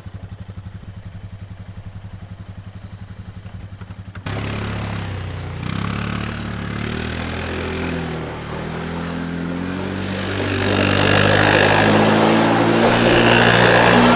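Four-wheeler (ATV) engine idling with an even pulse. About four seconds in it jumps to a louder run with its pitch shifting up and down, and from about ten seconds in it gets louder still under a rushing noise as the machine gets going.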